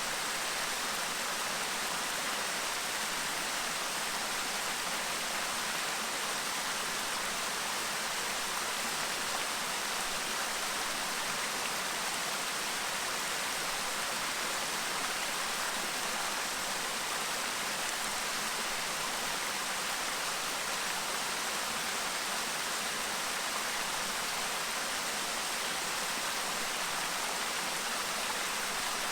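Clear river stream babbling: a steady, even rush of flowing water.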